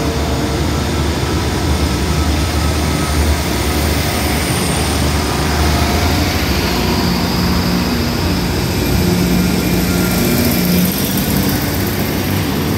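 Diesel multiple-unit passenger train rolling slowly past close by, its underfloor diesel engines running with a steady low drone over the rolling noise of the wheels.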